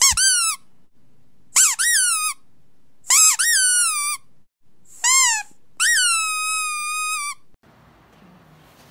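Five high-pitched squeaks, each jumping up in pitch and then sliding down, the last one drawn out for over a second. They are a test sound played to see how a dog reacts.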